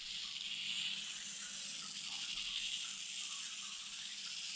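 Turbo Racing 1/76 mini RC car driving on a cloth-topped race-track mat, its tiny electric motor and gears giving a steady high whirring hiss with small irregular changes as it speeds up and brakes.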